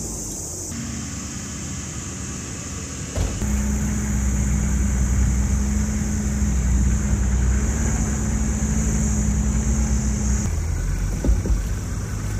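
4x4 jeep engine running at steady revs. It gets louder about three seconds in and drops back near the end, with a couple of short knocks.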